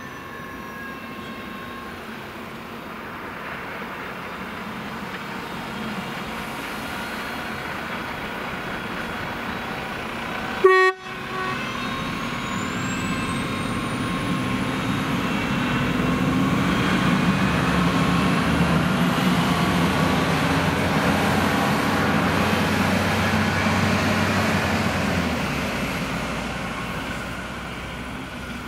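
Single-car diesel railcar approaching and passing an unguarded level crossing: a brief horn toot about 11 seconds in, then the engine and wheels growing louder as it goes by, fading near the end.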